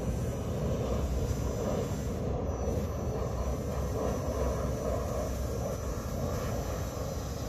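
Small electric radio-controlled boat running far out on the water: a faint, steady drone under a low, even rumble.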